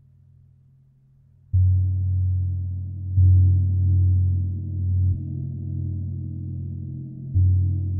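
Large chau gong struck four times with a soft yarn-wrapped mallet, the first stroke about one and a half seconds in. Each stroke sets off a deep, low ringing that carries on between strokes.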